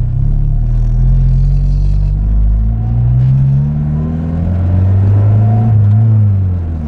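Turbocharged Honda B18B four-cylinder engine pulling hard under load, heard from inside the car's cabin. Its pitch climbs, falls back about two and a half seconds in, climbs again and then holds high before easing off near the end.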